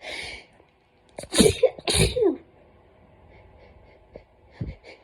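Two loud human sneezes, about half a second apart, from a person with autumn hay fever. The first comes about a second and a half in.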